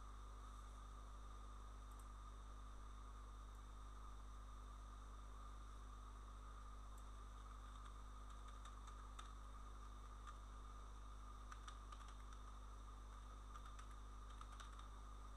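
Faint computer keyboard typing and clicks over a steady electrical hum and hiss, the clicks coming mostly in the second half.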